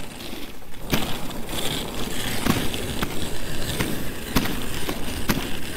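Dog sled running over an icy packed-snow trail: the runners scrape and hiss steadily, getting louder about a second in as the sled gathers speed, with irregular knocks and clatters as it rides over bumps.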